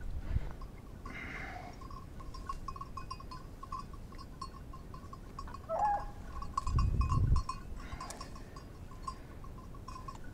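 Small bell on a hunting dog's collar ringing in quick, uneven jingles as the dog moves, with a brief low rumble about seven seconds in.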